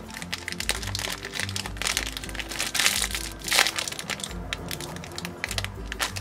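Background music with a steady repeating bass beat, with crinkling and clicking handling noises over it.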